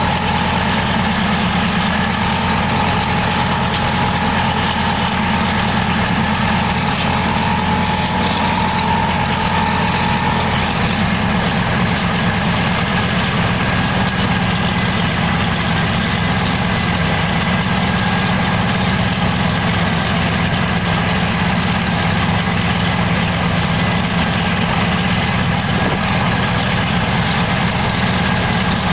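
Pratt & Whitney R-1830 Twin Wasp radial aero engine from a B-24 Liberator running steadily on a test stand, its propeller turning. A faint whine rides over the engine note and fades out about ten seconds in.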